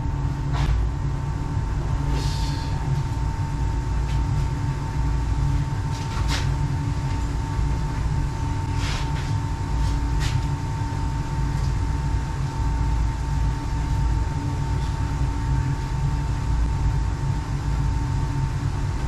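Slant/Fin Galaxy GXH-300 gas steam boiler firing: a steady low burner rumble with a thin steady tone over it. A few light clicks and taps come in the first ten seconds or so.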